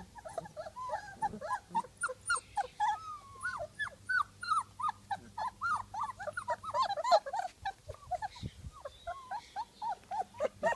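Black and tan coonhound puppies whining, many short high-pitched cries overlapping, several a second.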